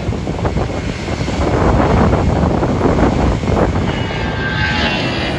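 Large aircraft engines running loud at the airfield, a rumble that swells in the middle, with a whine coming in near the end.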